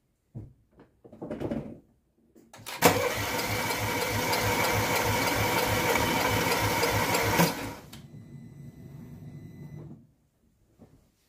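Car starter motor cranking a petrol engine with its spark plugs out for a compression test: a steady, evenly pulsing whirr that starts suddenly about three seconds in and stops after about four and a half seconds, then a quieter steady sound for about two seconds. The compression came out a bit weak, which the mechanic takes to mean something is not sealing.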